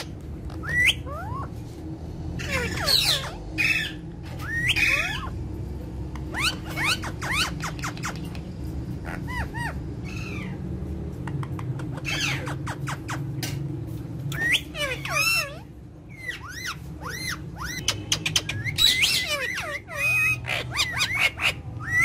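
A group of pet ringneck and Alexandrine parakeets calling: short, sharply gliding squawks and chirps in quick bunches, with short clicks among them, over a steady low hum.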